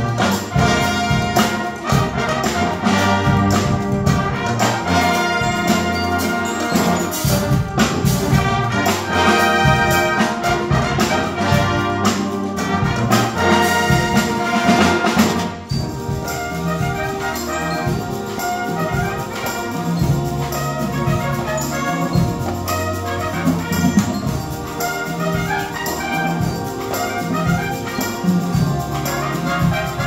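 A batterie-fanfare brass and percussion ensemble playing a concert piece, with trumpets and trombones over percussion. About halfway through, a loud passage full of sharp percussion hits gives way to a quieter, sparser one.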